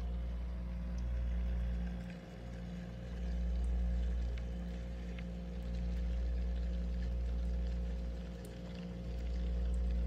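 Steady low electrical hum of a humidifier running inside a frost-packed freezer compartment, under a low rumble that swells and fades every couple of seconds, with a few faint ticks.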